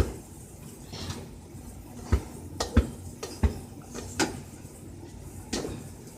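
A series of irregular sharp knocks and light clatters, about eight over several seconds at uneven spacing, like things being bumped or handled in a small room.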